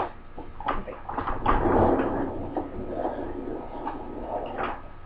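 A desk chair being handled and moved: a few knocks and a scraping, rolling noise, loudest about two seconds in.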